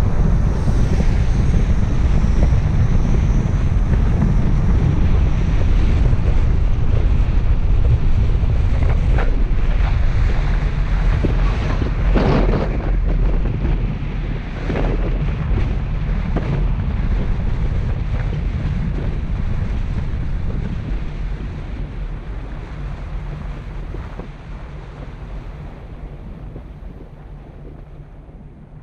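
Wind buffeting the microphone of a camera on a moving vehicle, a dense low rumble with road noise underneath. There are a couple of brief louder swells around the middle, then the whole sound fades out gradually over the last several seconds.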